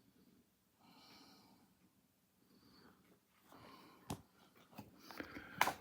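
Faint breaths close to the microphone and soft rustling of papers being handled, with two sharp clicks, one about four seconds in and a louder one near the end.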